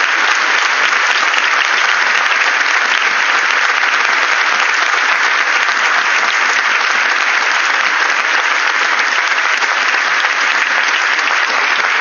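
Audience applauding at the close of a talk, a steady, dense clapping that cuts off abruptly near the end.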